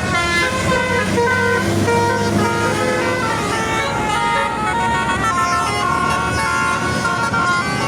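A bus's Basuri telolet musical air horn playing a tune, a run of stepped horn notes changing pitch every fraction of a second, over the low rumble of the bus engine.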